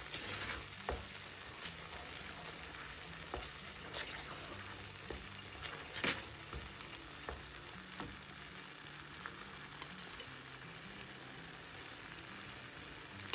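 Thick banana and jaggery halwa paste sizzling faintly in ghee in a pan as it is stirred with a wooden spatula, with a scattering of soft scrapes and taps.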